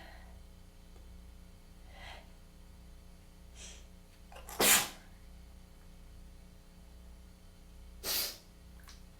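Two short breathy intakes, then two human sneezes about three and a half seconds apart, the first louder, part of a sneezing fit from a tickly, congested nose.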